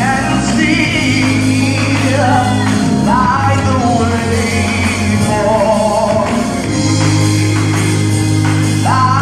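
Live gospel singing: a male lead singer on microphone with backing singers, over instrumental accompaniment with long held bass notes.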